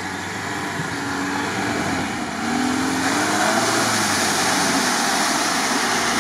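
Lada Niva 4x4's engine running under load off-road, its pitch rising and falling as it revs. A rushing noise builds from about three seconds in.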